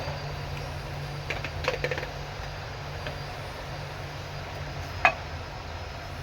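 Kitchen utensils clinking several times in quick succession over a steady low hum, then one sharp click a few seconds later.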